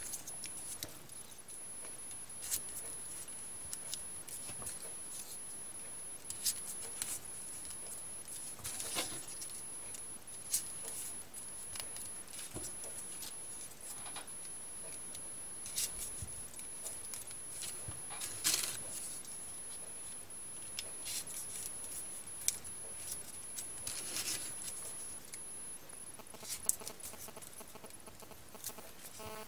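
Folded paper triangle units of modular 3D origami being handled and pushed onto a paper model: soft paper rustling with scattered crisp crinkles and clicks at irregular moments.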